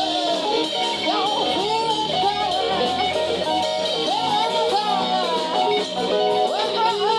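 Music led by guitar, with notes bent up and down in pitch throughout.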